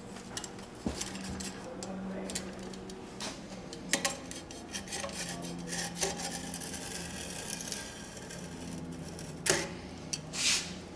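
A utility knife trimming grip tape along the edge of a metal scooter deck: scattered light clicks and scrapes of the blade and tape, with two louder rasping scrapes near the end.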